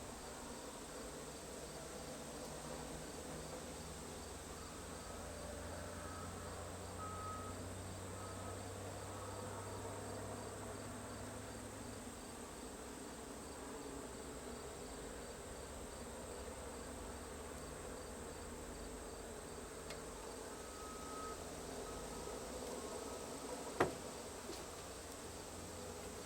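Insects chirping steadily over a low, steady hum, with faint short repeated tones and a single sharp click near the end.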